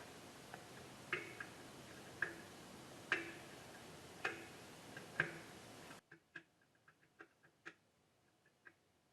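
Light clicks and taps of hand tools working on a radio's metal chassis, about one a second, over a steady hiss. The hiss cuts out suddenly about six seconds in, leaving fainter, quicker ticks.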